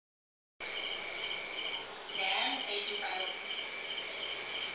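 Crickets and other night insects chirping steadily, one of them in a repeated pulsing chirp about three times a second. The sound starts about half a second in.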